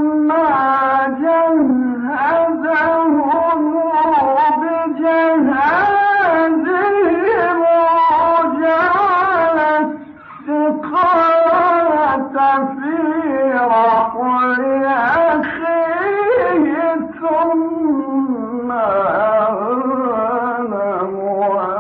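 A man's solo voice chanting in Arabic in long, ornamented melismatic phrases in the style of Egyptian Quran recitation, with one short breath pause about ten seconds in.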